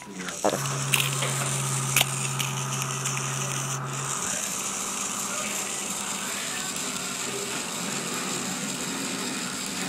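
Small battery-powered vibrating micro robot bug toy buzzing steadily as it skitters across a hardwood floor, with a few light ticks in the first two seconds.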